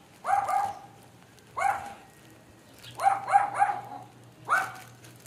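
Dog barking, high-pitched: two barks, a single one, a quick run of three, then one more.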